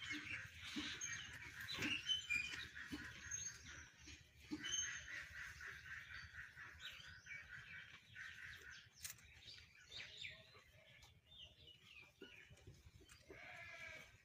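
Small birds chirping and twittering, a dense chorus of short high calls that thins out to scattered chirps about two-thirds of the way through.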